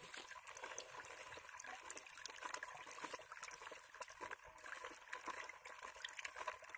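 A hand stirring water in a plastic bucket to dissolve fertilizer: faint, irregular sloshing and swishing.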